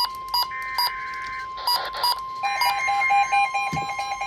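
Weather alert radios alarming: a steady high warning tone with short beeps repeating about two to three times a second over it. A faster, different beeping pattern joins about two and a half seconds in.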